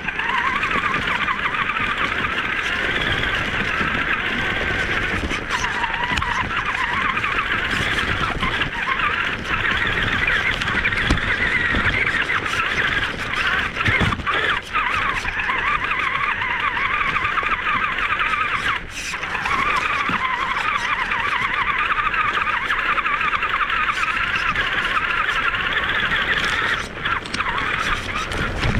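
Loud, dense rainforest insect chorus: a continuous high, shrill buzzing that holds steady, with a brief dip about two-thirds of the way through.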